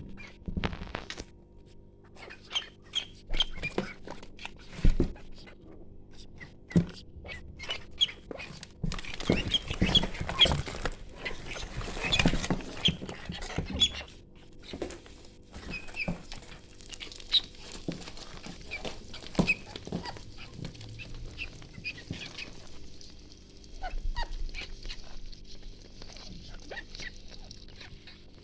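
Ducklings peeping in many short, high chirps, with scattered sharp knocks and rustling among them.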